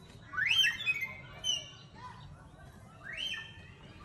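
High-pitched animal calls: a quick rising chirp followed by short higher notes, given about half a second in and again near the end.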